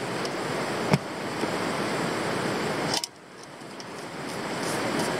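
River water rushing steadily. A sharp click comes about a second in, and about three seconds in the rushing drops away suddenly, then swells back up.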